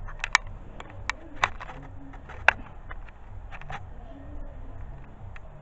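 A scatter of sharp clicks and taps, most in the first three seconds, over a steady low hum.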